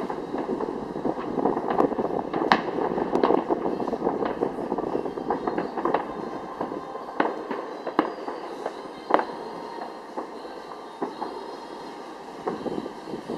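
Fireworks display: a dense crackle of many bursts with sharp separate bangs every second or so, thinning out a little after the middle.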